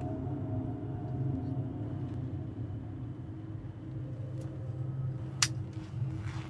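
Low, steady rumble inside a car's cabin, with a sharp click about five and a half seconds in.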